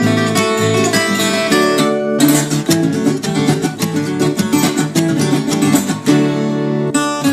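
Viola caipira, the Brazilian ten-string folk guitar, played in a busy run of quickly plucked and strummed notes, with a chord held for a moment near the end.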